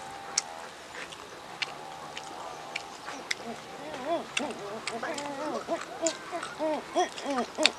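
Fingers clicking and scraping on a steel plate while eating with the hands. From about four seconds in, an animal calls nearby in a quick run of short notes that rise and fall.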